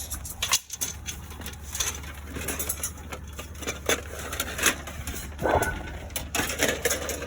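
Small pieces of scrap metal knocking and clinking as they are picked up by hand, a string of irregular short knocks over a low steady hum.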